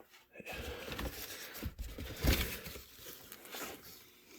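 Cardboard box being handled: rustling and scraping of cardboard with a few knocks, starting about half a second in.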